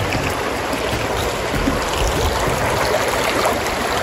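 Shallow mountain river flowing over stones and gravel: a steady rushing wash of water.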